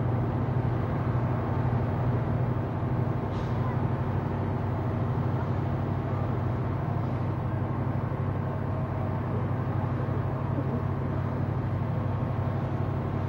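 Fire engine's engine running steadily at high revs to drive its pump, making a low, even drone while the hoses are charged.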